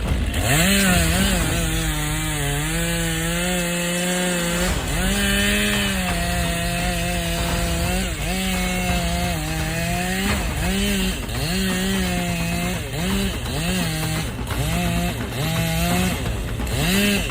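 Chainsaw running at high revs while cutting wood. The throttle is let off and opened again repeatedly, in long steady runs at first and shorter bursts in the second half.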